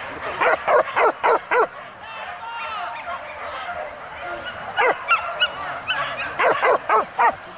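Leashed boar-hunting dogs barking in quick runs of sharp barks: four in the first two seconds, a few more around five seconds in, and another run near the end, with high whining in between.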